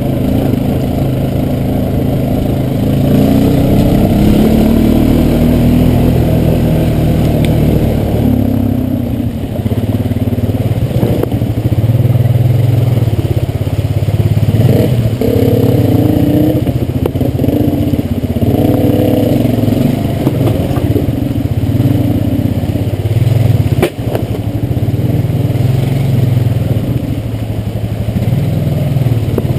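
Quad bike (ATV) engine running at low speed under load, its revs rising and falling as it crawls over rough ground, with clatter from the machine jolting over rocks and a sharp knock about 24 seconds in.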